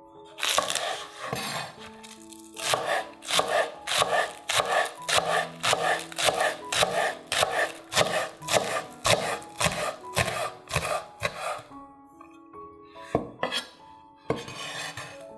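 Chef's knife chopping green onions on a wooden cutting board: quick, even strikes of about three a second, with soft background music.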